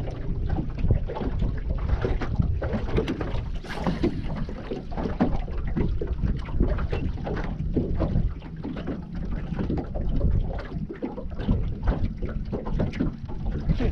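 Wind rumbling on the microphone, with irregular small slaps and knocks of water against a boat's hull.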